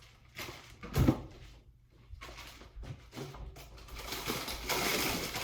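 Kitchen items being handled: one sharp knock about a second in, a few light clicks, then rustling near the end.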